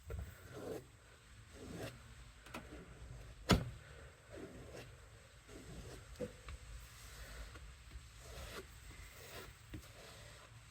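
Faint, light rubbing strokes of a kitchen knife's edge, repeated about once or twice a second, with one sharp click about three and a half seconds in.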